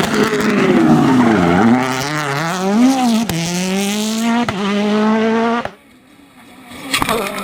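Rally car engine revving hard, its pitch dropping and climbing as the revs change, then holding a steady high note before cutting off suddenly about three-quarters of the way through.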